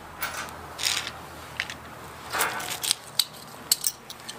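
Small hand tools and parts being handled at a bicycle's rear wheel while a tyre repair is finished: scattered clicks and two short scraping rustles, about a second in and midway.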